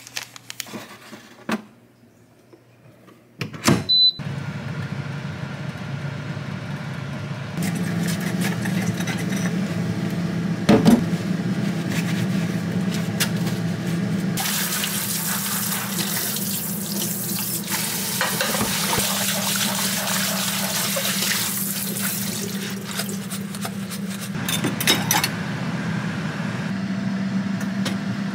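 Kitchen tap water running into a sink, steady, with a low hum underneath; the water runs harder for several seconds around the middle. A sharp click about four seconds in, when the running starts, and a knock partway through.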